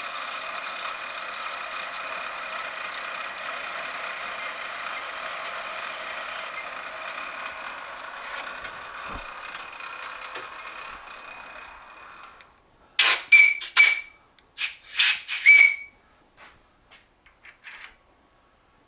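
Metal lathe running with a steady whine while a chucking reamer is fed into a drilled hole and withdrawn; the spindle winds down and stops about two-thirds through. Then several sharp metal clinks that ring, the loudest sounds here, and a few light clicks.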